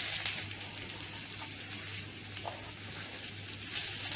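Green citron leaves sizzling in hot sesame oil in a clay pot, frying with dry red chillies and urad dal. A steady sizzle with a few faint pops that grows louder near the end.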